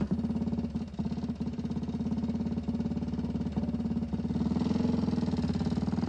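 Vintage BMW motorcycle engine idling with an even beat just after a kick start. It rises a little in speed about four and a half seconds in as the bike pulls away.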